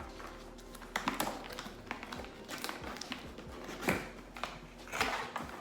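Scattered taps, clicks and rustles of boxed accessories and packaging being handled, with a few sharper knocks about a second in, near four seconds and near five seconds.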